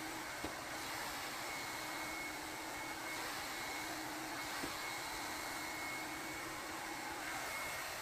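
Ola 2-in-1 hot air brush hair dryer running steadily: a rush of air with a thin motor whine. Two faint clicks, about half a second in and near the middle.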